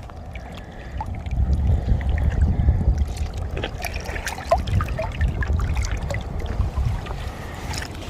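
Wind buffeting the microphone in a low rumble, with light water splashing and trickling at the lake's edge.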